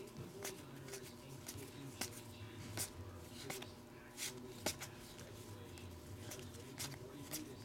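Panini Prestige basketball trading cards being flicked through by hand, their edges snapping in a run of sharp slaps, about two a second at an uneven pace.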